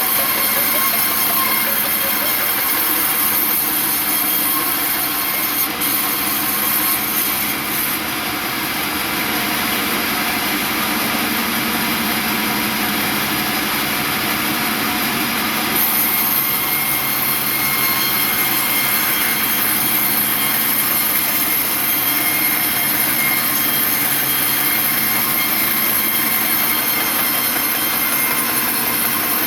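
Sawmill saw cutting through a large log: a steady, loud sawing noise carrying high whining tones, which shifts and grows brighter about halfway through.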